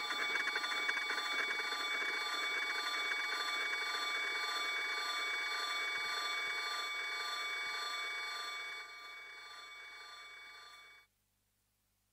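Electronically processed sound-art texture: a dense, rapidly fluttering ringing made of many held tones. It drops in level about nine seconds in and then cuts off abruptly, leaving silence.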